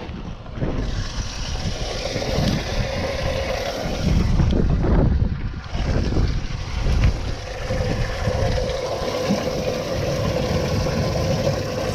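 Wind buffeting the microphone in gusts on an open boat, over a steady hiss and a faint hum.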